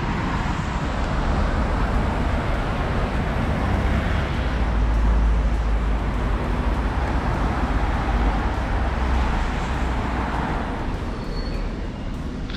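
Road traffic passing on a wet road: tyre hiss and engine rumble, swelling louder about five seconds in and easing off near the end.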